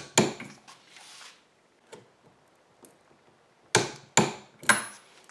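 Click-type torque wrench clicking sharply as it reaches its set torque on the clutch basket nut: two clicks at the start, then three more about half a second apart near the end.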